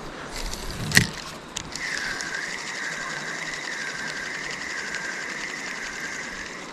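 A fishing reel being wound in. A sharp click about a second in, then a steady geared whirring that wavers in pitch about once a second as the handle turns, retrieving the lure.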